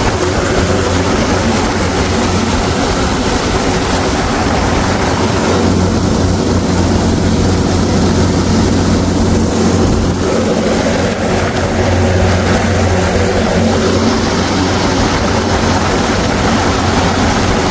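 Mahindra tractor's diesel engine running steadily while the tractor drives along, a constant low drone with an even rushing noise over it.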